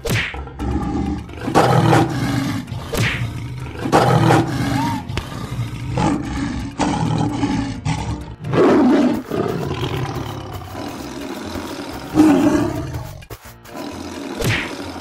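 A series of big-cat roars, one after another, over background music.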